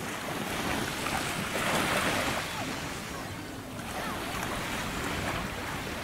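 Small Black Sea waves washing on the beach, with wind buffeting the microphone; the wash swells about two seconds in.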